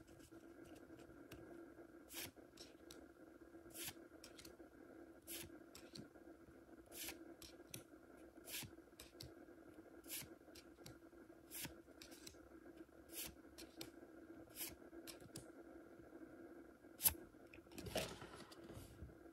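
Pokémon trading cards slid one at a time across a handheld stack, a soft swish about every one and a half seconds, over a faint steady hum. A sharper click and a louder rustle come near the end.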